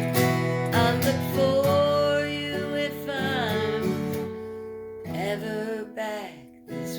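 Acoustic guitar strumming the chords of a folk song, with a voice singing long, wavering notes over it. It grows quieter in the second half.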